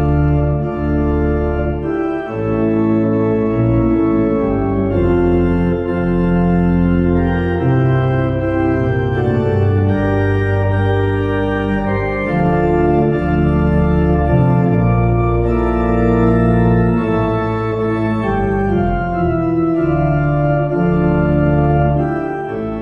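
Organ music: slow, sustained chords over a bass line that changes every second or two, easing off slightly near the end.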